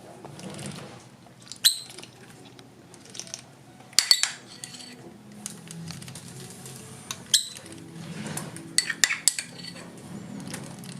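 A metal spoon clinking against a dish: several sharp ringing clinks, single ones about two seconds in and again past the seven-second mark, with quick clusters around four seconds and nine seconds.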